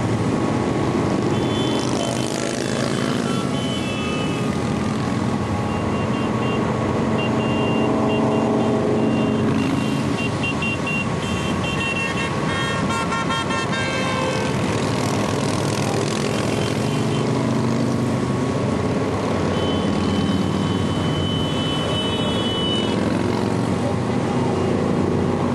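Steady din of many motorcycle engines streaming past on the highway, their pitches overlapping as bikes come and go.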